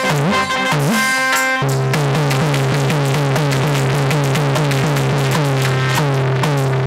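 Instrumental interlude of a Hindi devotional bhajan: electronic keyboard and drums playing a steady beat, with a repeating bass line and no singing.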